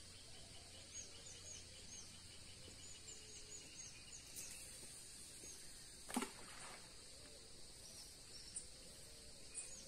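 Faint open-air ambience by calm water: a steady high insect hum, small birds chirping in short repeated notes, and one brief sharp sound about six seconds in.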